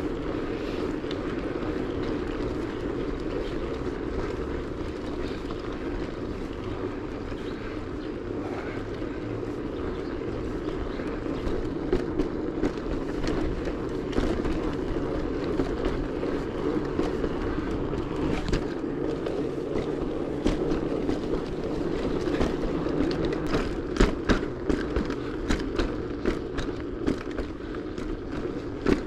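Bicycle riding along: a steady rush of tyre and wind noise, with scattered clicks and rattles from bumps in the surface, coming more often in the second half.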